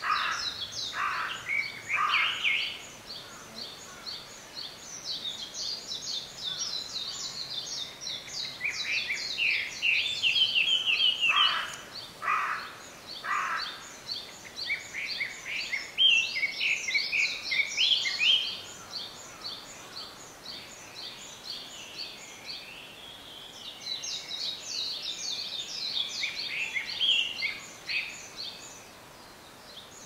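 Several wild songbirds singing and calling at once: a steady run of quick high chirps, louder varied song phrases coming in over it several times, and short calls in threes about a second apart near the start and again around the middle.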